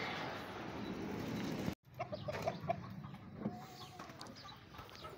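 A steady rushing noise that cuts off abruptly about two seconds in, followed by a rooster clucking: a few short clucks, then one longer call.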